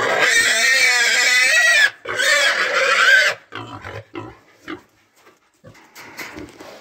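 Pig squealing loudly in two long, wavering cries of about two seconds and a second and a half, then a run of short, quieter grunts.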